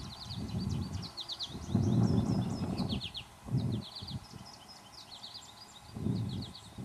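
Wind buffeting the microphone in gusts, with many birds chirping over it in quick, high, repeated notes and short trills.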